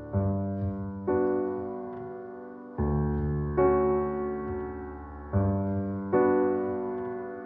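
Background music: slow piano chords, each struck and left to fade, with a new chord every one to two seconds.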